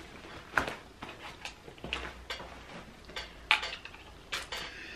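A small battery-powered portable selfie light being handled: irregular light clicks and taps of hard plastic.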